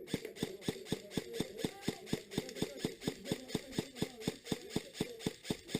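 A steady run of sharp clicks, about four a second, evenly spaced, starting and stopping abruptly.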